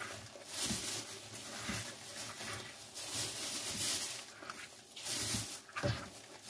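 Rustling and scraping as rubber-gloved hands pick up and move salt-covered mackerel pieces on a wooden cutting board, with a few soft knocks.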